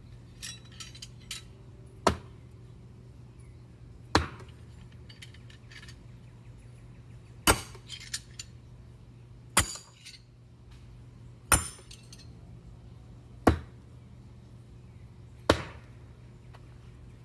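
Steel throwing knives, thrown no-spin, striking a wooden target one after another: seven sharp impacts about two seconds apart. Between throws there are light metallic clinks of the knives held in the other hand.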